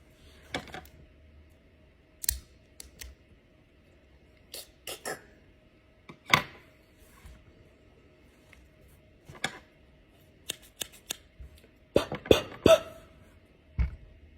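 Irregular sharp clicks and taps, about a dozen, scattered one or two at a time, with a quick cluster of the loudest ones near the end.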